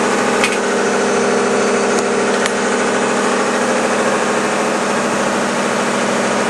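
Sailboat's auxiliary engine running steadily under motor-sail, a constant drone with a couple of brief light clicks in the first few seconds.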